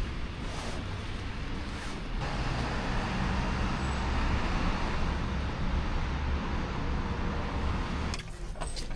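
Steady road-vehicle noise: a low rumble under an even hiss, which cuts off abruptly about eight seconds in.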